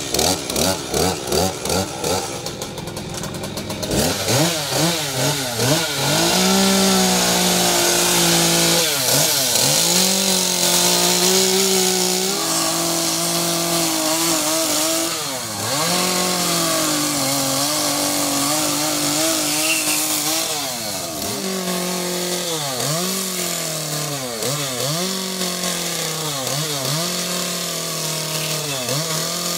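Stihl chainsaw running and revving in rapid pulses for the first few seconds. Its engine pitch then dips and recovers again and again as the chain bites into the wood of a carving.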